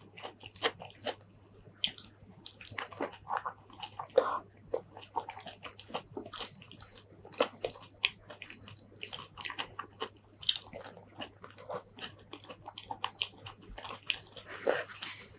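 Close-miked wet chewing and mouth smacks from eating soft stuffed green eggplant with rice, a dense run of irregular sticky clicks. A faint steady low hum lies underneath.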